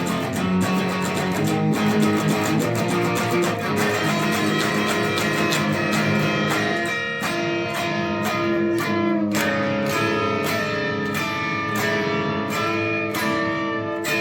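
Instrumental outro of a rock song: guitars play on with a steady beat and no vocals.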